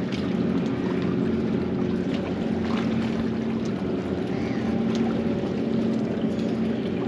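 Steady low hum of a boat engine running, over wind and water noise around a small boat.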